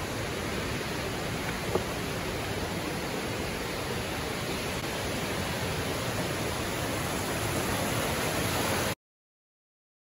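Steady rush of a large waterfall, growing slightly louder, with one short click a little under two seconds in. It cuts off abruptly about nine seconds in.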